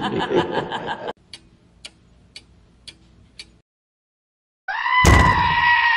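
Clock-style ticking: five sharp ticks about half a second apart, after a loud pulsing sound in the first second. Near the end a loud, steady held tone cuts in.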